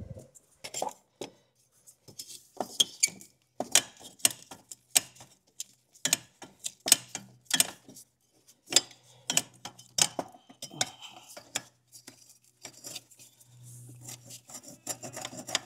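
Stiff old rubber hoses being twisted and worked off the Toyota secondary air pump's fittings: irregular clicks, knocks and rubbing of hose, plastic and metal parts.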